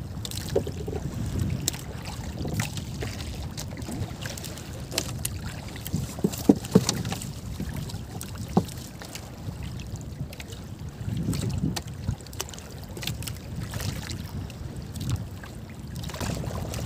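Small outrigger boat drifting on open sea: water lapping against the hull and wind buffeting the microphone, with a few sharp knocks about six to seven seconds in and another near nine seconds.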